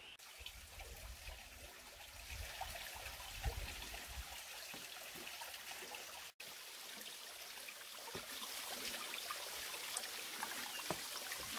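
A small stream trickling over rocks, a steady watery hiss. There is a low rumble under it in the first few seconds and a brief dropout about six seconds in.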